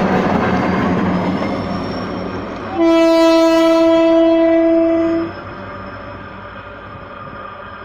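A GM GT22 diesel locomotive and its coaches rumbling and clattering past close by, then one long, loud blast of the locomotive's air horn lasting about two and a half seconds, cut off sharply, after which the train's rumble fades as it moves away.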